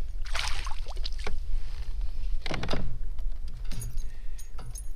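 A hooked largemouth bass splashing at the surface beside a kayak as it is lifted aboard, with several sharp splashes and knocks from the fish and its handling, over a steady low rumble.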